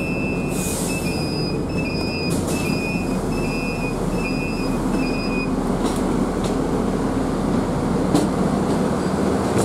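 Steady low rumble of a moving vehicle heard from inside. A repeating electronic beep sounds through roughly the first half, and there are a few light knocks.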